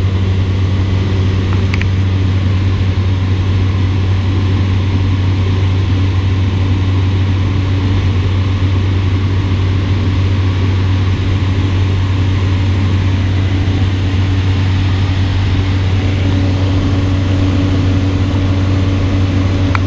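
Cessna Caravan seaplane's single turboprop engine and propeller heard from inside the cabin in flight: a loud, steady low drone with a fainter even hum above it and a rush of air noise.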